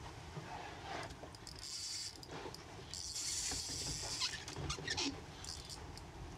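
Scattered clicks and two short bursts of hissing whir, a brief one near two seconds in and a longer one about three to four seconds in: a Toadfish spinning reel being worked while jigging.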